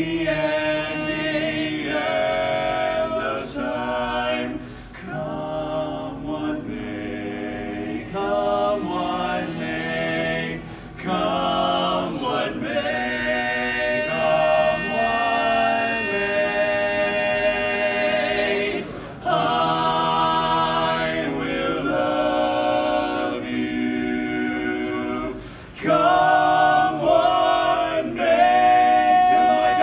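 Male barbershop quartet singing a cappella in four-part close harmony, phrase after phrase with short breaks between, growing louder near the end and holding a long note at the close.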